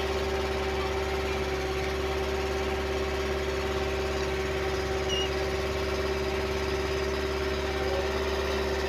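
Wooden boat's engine running steadily under way, an even drone that holds one pitch throughout.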